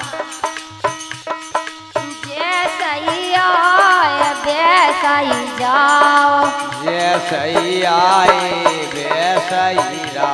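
Folk devotional music: a steady held drone under evenly spaced drum and rattle beats, joined from about two seconds in by a wavering, gliding melody.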